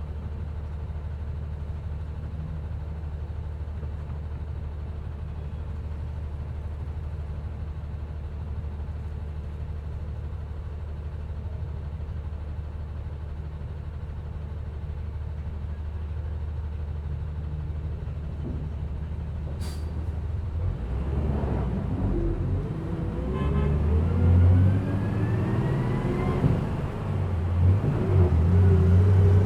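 Passenger bus heard from inside. Its engine drones steadily at a low pitch for about twenty seconds. After a brief sharp click, it pulls away, getting louder, with rising engine whines as it accelerates.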